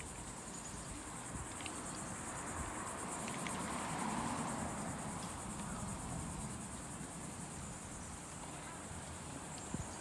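A steady, high-pitched insect chorus buzzing from the trees, with a low rushing noise that swells to a peak about four seconds in and then fades.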